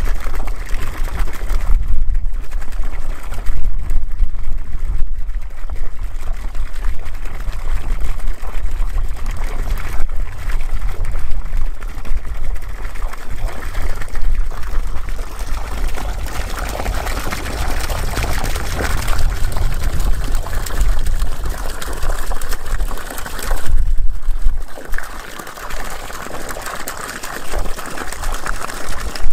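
Water gushing steadily from the outlet pipe of a water-wheel drum pump and splashing down into a stream, with a brief dip in level near the end. The pump is running and delivering water with no electricity.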